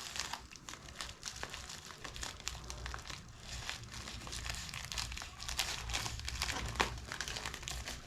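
Packaging being opened by hand: continual crinkling and rustling with some tearing. A low steady hum comes in about two seconds in.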